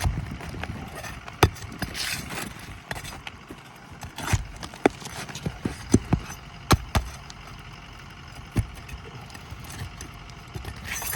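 Irregular sharp knocks and short scrapes of hand work on an asphalt shingle roof, with tools and shingles being handled and pried loose.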